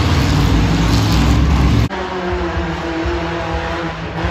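Tuff truck pickup engines running hard on a dirt course: a loud, deep engine rumble, then a sudden cut about two seconds in to another truck's engine, running somewhat quieter with a steady whine over it.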